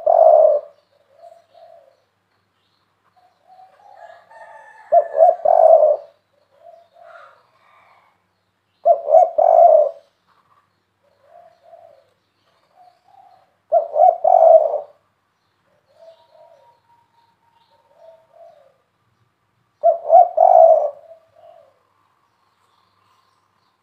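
Spotted dove cooing loudly: a deep coo phrase about every four to six seconds, five in all, with softer single notes between. It is the big-voiced 'kuk 3' coo that Indonesian dove keepers prize.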